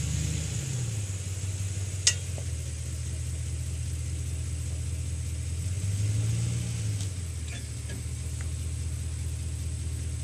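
A motor vehicle's engine idling, its pitch rising briefly once near the middle and then settling. One sharp crack comes about two seconds in.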